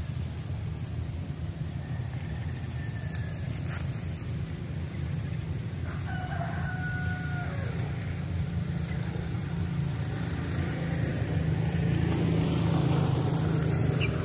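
A rooster crowing once, a held call about six seconds in, over a steady low rumble that grows louder near the end and a thin steady high whine.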